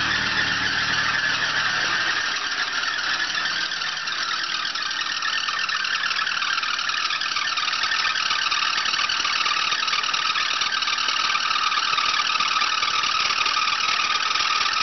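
A loose alternator belt squealing steadily on the just-started 3.0 V6 of a 1984 Oldsmobile Cutlass Ciera, its pitch sinking slowly. The engine idles underneath, its low running sound dropping a little after about two seconds.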